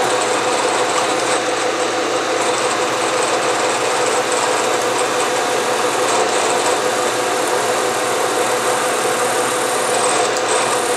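Bridgeport milling machine's spindle running steadily with a center drill cutting into a metal bar.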